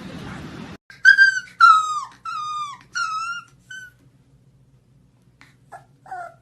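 A dog whining in five high, slightly falling cries, one after another, then a couple of faint short whimpers near the end.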